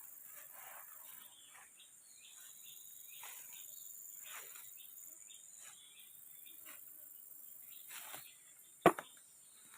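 Steady high insect chorus, like crickets, over a run of short rustles and scrapes, with one sharp knock nearly nine seconds in.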